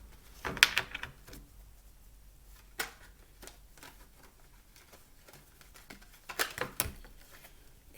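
Tarot cards being handled: two short bursts of rapid clicking and riffling, about a second in and near the end, with a single click in between.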